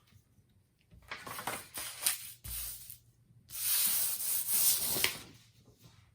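Handling noise: two spells of rubbing and rustling, with a few clicks and a dull knock between them.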